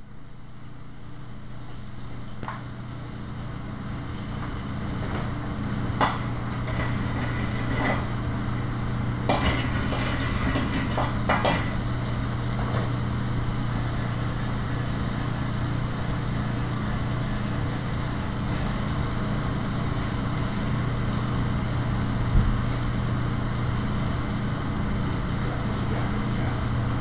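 Food sizzling on a commercial flat-top griddle over a steady low hum of kitchen ventilation, with a few brief clinks of pans.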